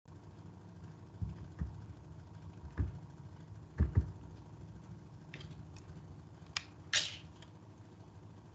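Handling noises of someone working at a computer: a few low thumps, the loudest two close together about four seconds in, then several sharp clicks and a brief rustle near the end, over a steady low hum.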